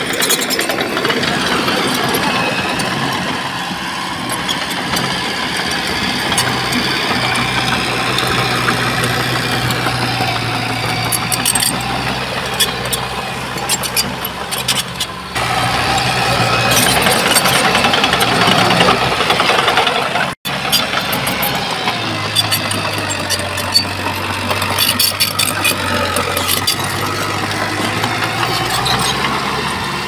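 Diesel engine of heavy earthmoving machinery running under varying load, its note shifting up and down, with scattered sharp clicks and clanks. The sound changes abruptly about halfway through and drops out for an instant about two-thirds of the way in.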